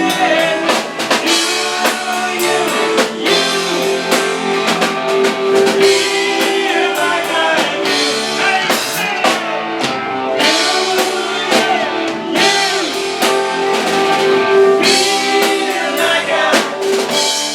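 Live rock band playing, with a drum kit keeping a steady beat, guitar and singing.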